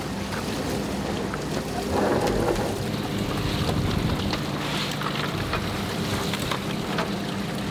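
Seawater splashing and spattering into a plastic tub as an octopus trap is shaken out, with scattered knocks and a louder splash about two seconds in. Under it the fishing boat's engine runs steadily.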